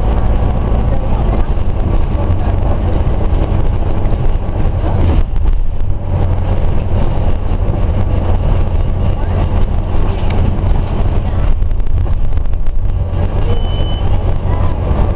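Interior sound of a Scania OmniCity single-deck bus on the move: a steady low engine rumble with road and body noise in the passenger saloon. Near the end comes a short single beep, the stop-request signal, after which the destination display shows "Bus Stopping".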